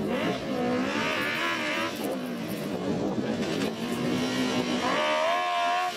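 Kartcross buggy's Honda CBR600RR inline-four motorcycle engine racing, its pitch climbing and falling as it revs, then rising again near the end.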